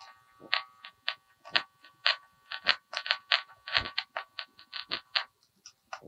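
Speaker of a handheld inductive tone probe giving a quick irregular series of short crackling clicks, about two to three a second, with the transmitter's faint tone in each, as its tip is brushed across a bundle of Ethernet cables. The tone comes through only faintly, a sign that the cable carrying it is close but not yet singled out. The clicks thin out near the end.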